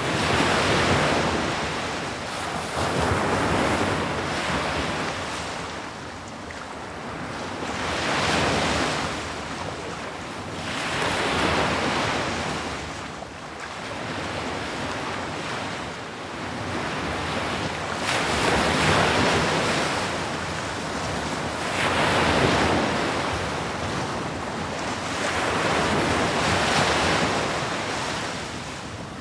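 Ocean waves breaking on the shore and washing back, a steady rushing surf that swells and ebbs every few seconds.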